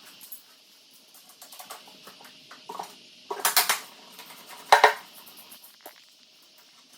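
Metal tools and parts clicking and clinking as a dirt bike's rear suspension linkage is taken apart, with two louder metallic clatters about three and a half and five seconds in.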